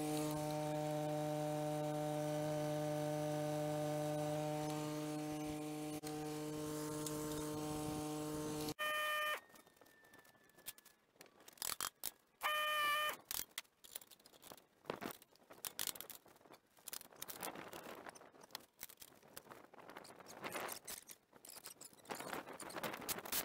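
A steady hum with even overtones runs for about nine seconds and cuts off suddenly. Two short pitched tones follow, then scattered clicks and knocks of metal parts and bolts being handled during sawmill assembly.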